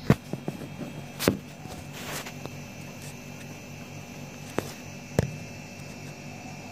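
Steady low hum with several sharp clicks and knocks: a cluster in the first second and a half, a short hiss around two seconds, and two more knocks between four and a half and five seconds.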